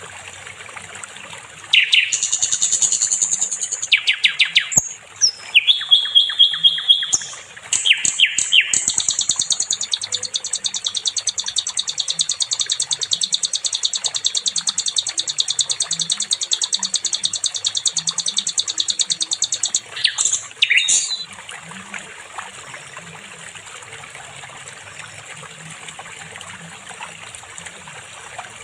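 A sikatan londo flycatcher singing: high-pitched chattering phrases, then a long, fast, unbroken trill lasting about twelve seconds, ending about 21 seconds in.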